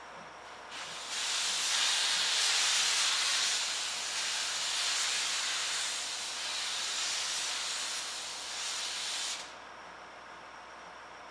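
Steam locomotive C57 180 venting steam from its cylinder drain cocks as it slowly pulls away: a loud, steady hiss that starts about a second in and cuts off sharply near the end.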